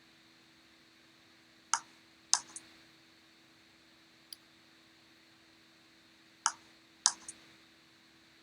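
Sharp computer mouse clicks, in two clusters, the first about two seconds in and the second about six and a half seconds in, with a faint tick between them, over a faint steady electrical hum.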